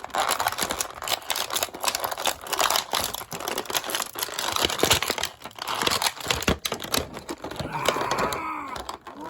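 Toy packaging crinkling and rustling, with many small irregular clicks and crackles, as an action figure is pulled out of its box.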